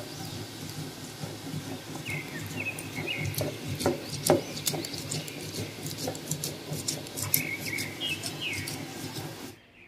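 Stone muller rubbed back and forth over seeds and water on a flat grinding stone: a steady wet grinding and scraping with many small clicks, the sharpest ticks about four seconds in. Birds chirp briefly in the background, about two seconds in and again near the end.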